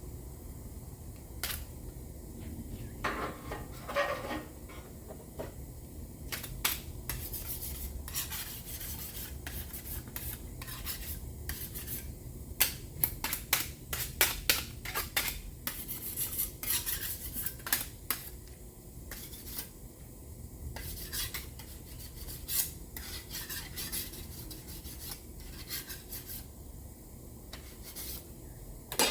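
A plastic spreader scraping and clicking against a mixing board and the panel, in irregular short strokes, as body filler is mixed and spread. A steady low hum runs underneath.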